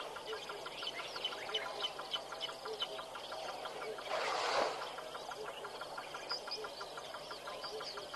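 Outdoor bush ambience at a waterhole: many small birds chirping, over a steady rapid pulsing call of about five or six pulses a second. About four seconds in, a brief rushing noise rises and fades within under a second.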